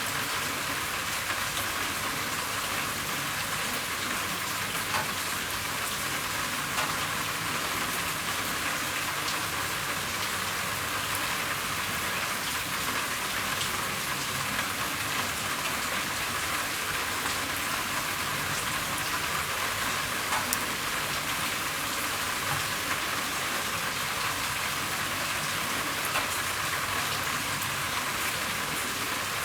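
Steady rain falling on a roof: an even hiss with scattered individual drop ticks.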